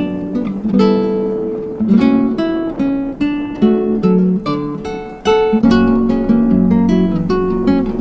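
Background music of an acoustic guitar playing a steady run of plucked notes and chords.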